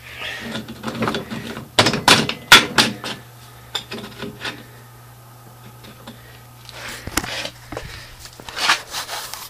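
Handling knocks and clunks of metal parts, loudest in a cluster about two seconds in, with a few lighter knocks later and more handling noise near the end. A steady low hum runs underneath.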